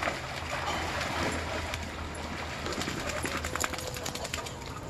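Water sloshing and splashing as several dogs wade through shallow water pooled on a pool cover, with scattered short taps.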